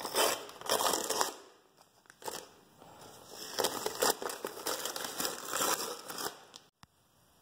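Blue painter's masking tape being peeled off a painted engine block deck and crumpled, crinkling and tearing in two spells with a pause between.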